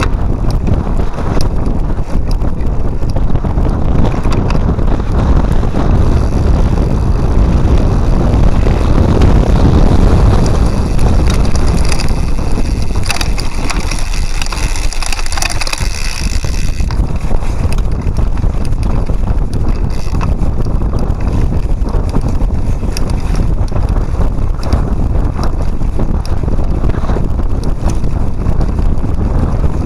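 Wind buffeting the microphone of a handlebar-mounted camera on a cyclocross bike being ridden hard, with the bike rattling and knocking over rough ground. A higher hiss comes in for a few seconds around the middle.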